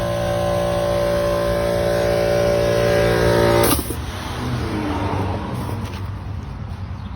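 A motor running steadily and growing slightly louder, then cutting off abruptly about three and a half seconds in, leaving a fainter, irregular noise.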